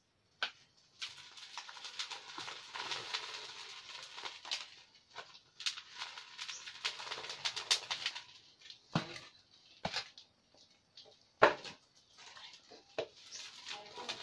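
Crackling and rustling with scattered sharp clicks, the loudest about eleven and a half seconds in, from rice paper and a plastic bag being handled over a small wood cooking fire.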